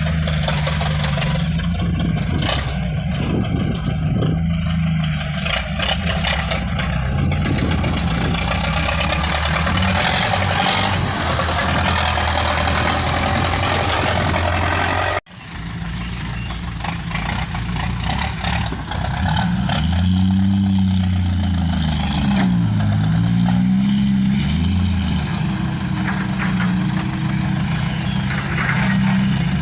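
A large vehicle's engine running steadily under load, cutting off abruptly about halfway, then revving up and down several times.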